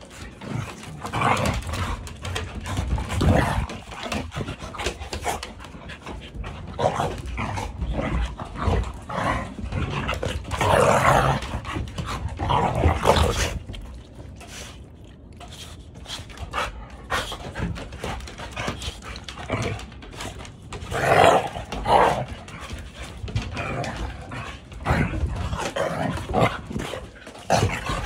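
Two dogs play-fighting, growling and panting in irregular bursts, with louder flurries about ten seconds in and again about twenty-one seconds in.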